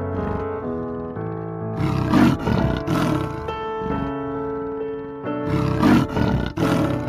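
Tiger roaring in short loud bursts, about two seconds in, again about three seconds in, and twice near six seconds, over background music of held notes.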